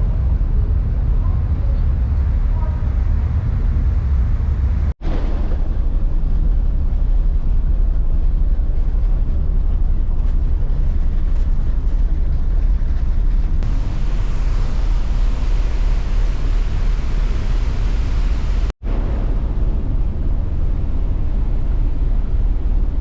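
Steady low rumble of a vehicle in motion, heaviest in the deep bass, broken abruptly twice by edits. For a few seconds in the middle a brighter hiss is added over it.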